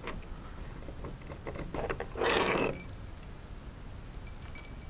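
Homemade wind chime of small scrap-metal pieces tinkling as it is lifted and handled, bright high clinks that build near the end. Before it, a few small clicks and a brief loud rustle halfway through, the loudest moment.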